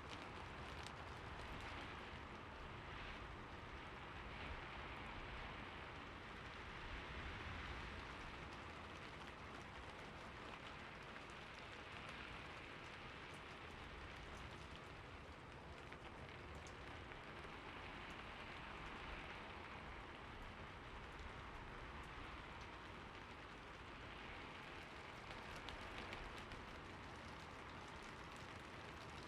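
Steady rain falling on a surface, a soft even hiss scattered with fine drop ticks and gentle swells in intensity.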